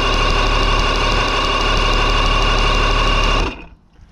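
Electric starter cranking a 1985 Mercury 90 hp two-stroke outboard without it catching: a steady whine with a fast, even beat that cuts off about three and a half seconds in. The engine is being turned over to check for spark at the plugs with an inline spark tester, after a faulty switch box was replaced.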